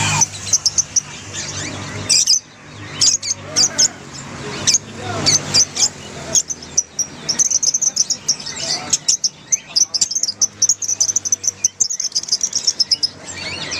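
A flock of Fischer's lovebirds chattering: a dense jumble of sharp, high chirps and shrill calls. About halfway through it thickens into rapid, unbroken chatter. This is the group chatter (ombyokan) played to lovebirds that have stopped singing, to set them calling.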